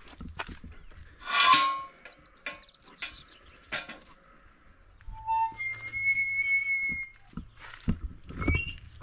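Footsteps on a grassy path. About a second and a half in there is a short, harsh creak, and around six seconds in a high, steady whistle-like tone lasts about a second.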